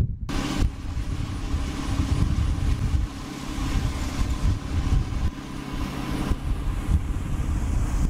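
Large Caterpillar crawler bulldozer's diesel engine running steadily with a strong hiss over a low hum. It cuts in abruptly just after the start, and the hiss eases a little about six seconds in.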